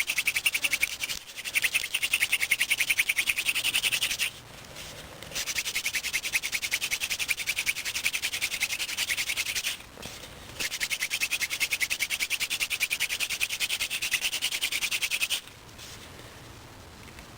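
Hand-drill fire set, a cattail spindle spun between the palms in a willow fireboard notch, grinding out an ember. It makes a rapid, rhythmic high squeaking rasp in three long bouts, broken by short pauses about four and ten seconds in.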